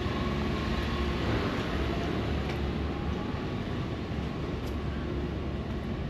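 Steady hiss of rain and wet street noise, with the low hum of a vehicle's engine in the first half.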